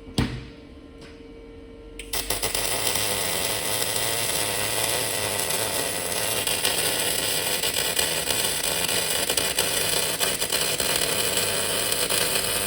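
A click, then about two seconds in a loud, steady rushing noise starts abruptly and runs on unchanged until it cuts off at the very end.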